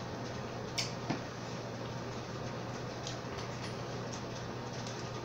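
Small handling and eating noises at a table: a few sharp clicks, the clearest about a second in, and lighter ticks later, over a steady low hum.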